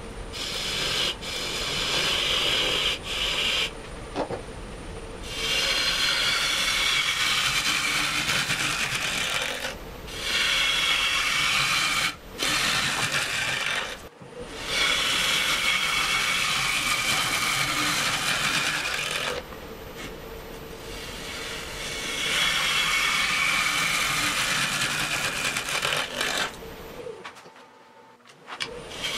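Green (wet) butternut bowl blank on a wood lathe being cut with a gouge: a steady hissing shear of wet wood in passes of several seconds, with the lathe motor's hum in the short gaps between cuts. Near the end the sound falls away as the lathe stops.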